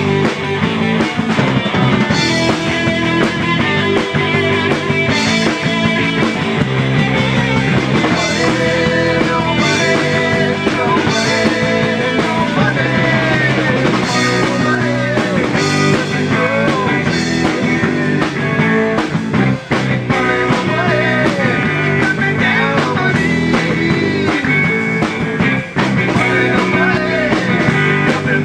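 Rock band playing a song: guitar, bass and drums, with keyboard, loud and continuous.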